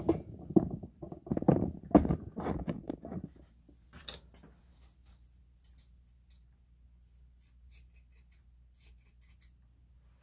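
Thinning shears snipping through matted dog fur: a scattered run of short, crisp clicks. Louder rubbing and knocking, the loudest part, fills the first three seconds.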